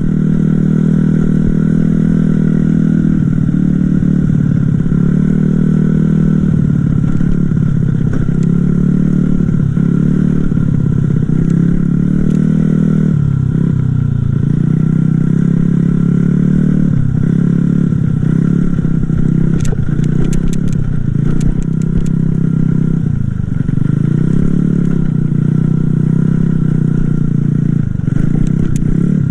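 A small motor running steadily, its pitch rising and falling again and again, with a few sharp clicks about two-thirds of the way through.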